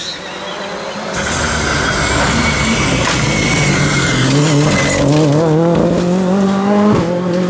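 Ford Fiesta rally car passing at speed: its engine comes in loud about a second in, then rises in pitch as it accelerates away, with a short break near the end like a gear change.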